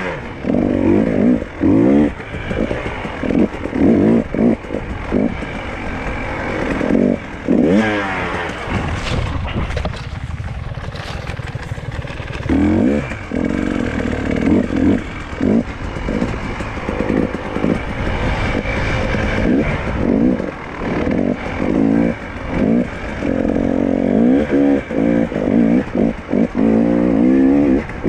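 KTM 300 TPI two-stroke enduro bike engine heard on board, revving up and down in short, repeated bursts of throttle while riding rough, rutted ground. The revs ease off for a few seconds near the middle, then pick up again with rising revs near the end.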